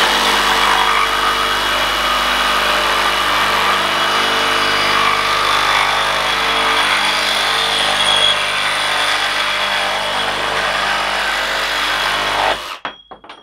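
Ridgid Octane one-handed cordless reciprocating saw running steadily, its new blade cutting through thin-wall (1/16-inch) steel pipe, with a high metallic ring from the blade on the metal. The saw stops abruptly about twelve and a half seconds in as the cut finishes, followed by a couple of small clicks.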